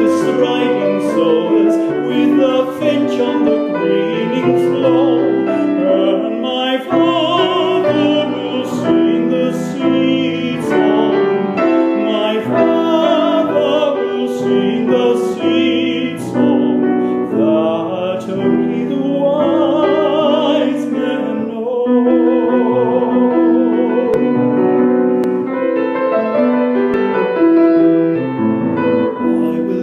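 A male classical singer singing an English art song with vibrato, accompanied by piano.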